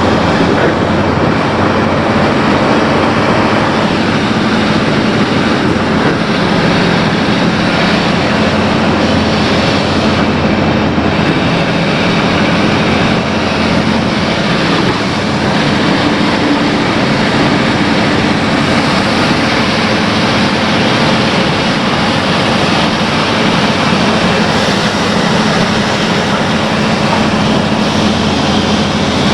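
Excavator diesel engine running steadily under a loud, constant mechanical din, with an even hum that barely changes in pitch.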